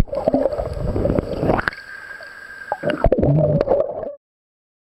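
Muffled underwater water noise heard through a submerged camera: gurgling and bubbling with several sudden knocks and a held high tone for about a second near the middle. It cuts off abruptly shortly before the end.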